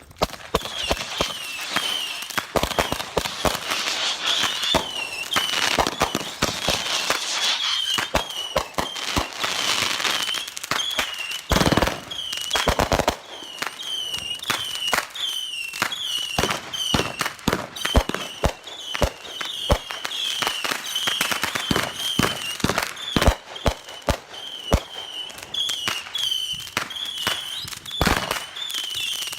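A 34-shot, 500-gram consumer firework cake (Phantom Fireworks' The Fat One) firing its show: a rapid, continuous string of shot launches and bursting reports, with crackling between the bangs.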